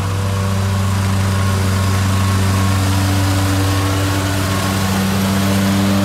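Stand-on zero-turn lawn mower engine running steadily at mowing speed, a constant low drone.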